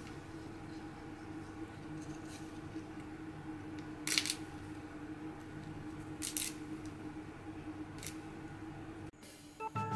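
Fresh kaffir lime leaves torn by hand: four short, crisp rips spaced a couple of seconds apart, the loudest about four and six seconds in, over a steady low hum.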